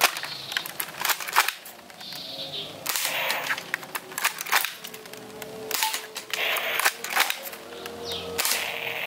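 Toy electric AWM sniper blaster firing again and again: a long run of sharp snaps and clicks, some close together, others a second or so apart.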